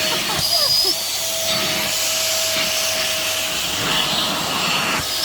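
Deerma 2-in-1 corded stick vacuum, rated at 400 watts, running steadily: a loud rush of air with a steady motor whine.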